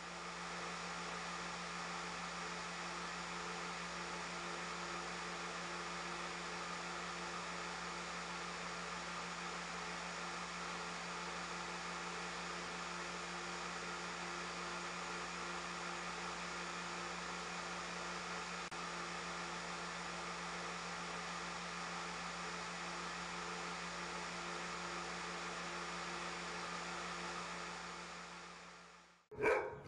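Steady machine whir with a low hum, like a motor or fan running, fading in at the start and fading out near the end. A dog barks a couple of times right at the end.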